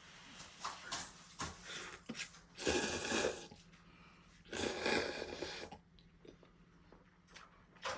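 Ramen noodles being slurped close to the microphone: two loud, airy slurps of about a second each, with small mouth and utensil clicks between them.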